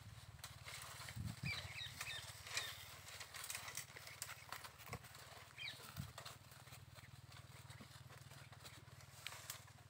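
Goats foraging in dry brush, faint scattered rustling of leaves and crackling of twigs as they pull at branches. There are a few short, high chirps in the first half.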